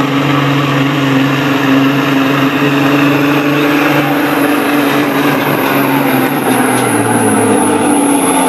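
Semi-truck's diesel engine running flat out under heavy load while pulling a weight sled, a loud, steady drone.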